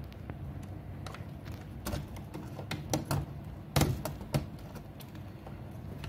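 Screwdriver tightening a terminal screw on a three-phase rotary cam switch, with a scattered series of light clicks and knocks from the screwdriver and the switch's plastic housing. The loudest knocks come about four seconds in.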